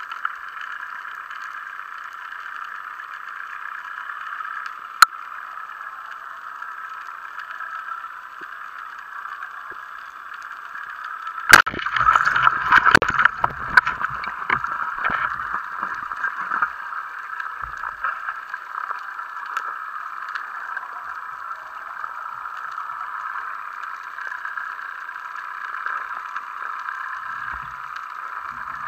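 Underwater hiss with a single sharp click about five seconds in. Shortly before halfway, a Mares Viper Pro 110 band-powered speargun fires with a loud crack, followed by a few seconds of rattling and knocking.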